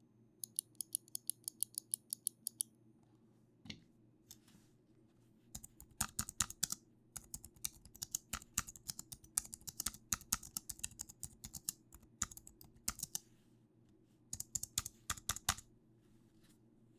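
Keys being typed on a computer keyboard. It opens with a fast, even run of clicks, and after a pause comes a long stretch of typing with some heavier strokes mixed in.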